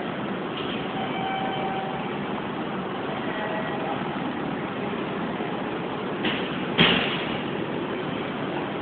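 Steady background din of a train station, with two sharp knocks a little over six seconds in, the second one louder.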